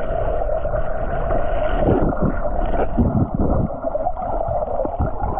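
Muffled underwater sound heard through a submerged camera: a steady hiss of water with irregular low thumps and sloshes as the camera moves.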